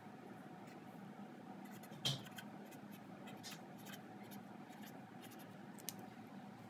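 Marker tip scratching on paper in short strokes as numerals are written, faint. About two seconds in there is a sharp click, the loudest sound, and a smaller click comes near the end.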